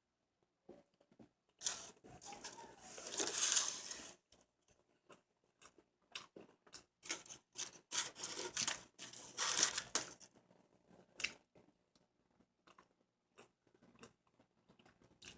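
Close-miked eating of a burger: irregular clicks, crunches and rustling, loudest about two to four seconds in and again from about seven to ten seconds in.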